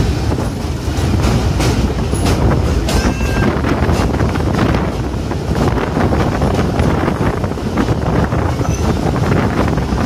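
Train running across a riveted steel truss bridge, heard from on board: a steady loud rumble of wheels on rails with scattered clicks, and a brief faint high squeal about three seconds in.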